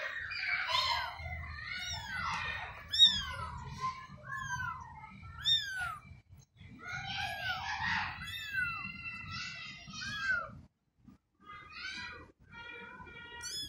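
Newborn kittens mewing over and over in short, thin, high cries that rise and fall, several overlapping at once. A low rumble runs under them and stops near the end.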